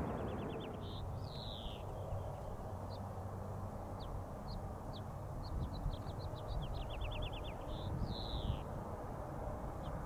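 A songbird singing: a quick run of about seven short clipped notes followed by a downward slurred note, given once at the start and again about seven seconds in, with scattered single chips in between, over a low steady rumble.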